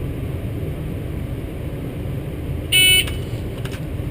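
Pocket Pro II shot timer giving one short, loud, high electronic beep about three seconds in: the start signal to draw, over a steady low background rumble.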